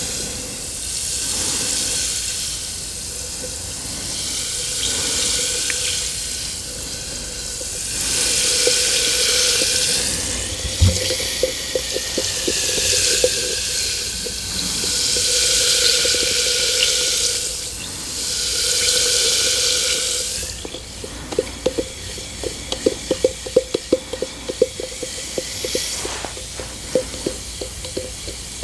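Bath bomb fizzing in a container of cold water: a hiss of bubbles that swells and fades every few seconds, with one soft knock about a third of the way in. In the last third the hiss drops and gives way to quick, irregular crackling pops.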